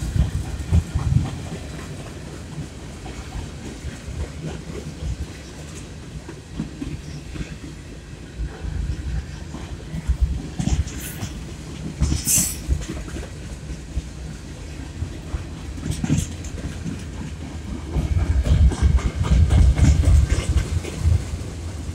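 Freight cars of a CN freight train rolling past close by, wheels rumbling and clattering steadily over the rails. There are a few brief high-pitched squeaks a little past halfway, and the rumble grows louder near the end.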